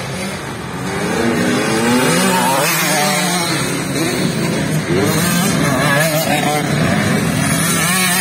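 Several motocross bike engines revving up and easing off as the bikes ride through a dirt-track corner, getting louder about a second in.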